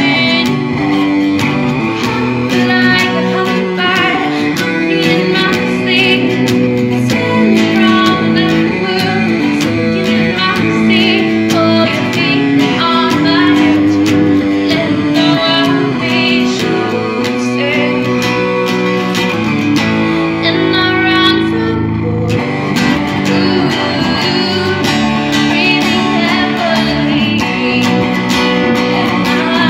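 A woman singing to her own strummed acoustic guitar, a song cover with steady strumming under the vocal line.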